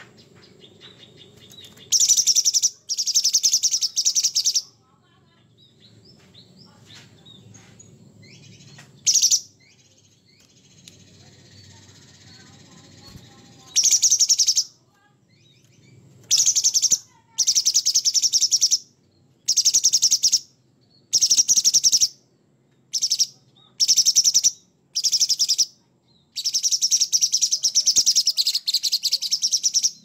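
Orange-bellied leafbird (cucak cungkok) singing rough, harsh, high-pitched song in short rapid-fire phrases. The phrases are few at first, then come about once a second from halfway on, with one longer run near the end.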